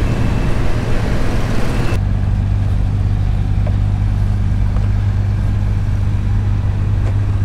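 A vehicle engine running at a steady speed, a loud, even low hum. About two seconds in the background hiss drops away sharply and the hum carries on steadier.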